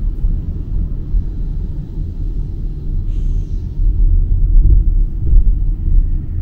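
Low, steady road rumble of a moving car heard from inside the cabin, with a brief hiss about three seconds in.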